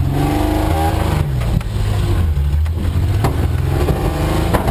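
1983 Ford Ranger's 2.8-litre V6 revving hard under load as the stuck truck tries to back out, its pitch rising and falling. A few sharp knocks sound over it.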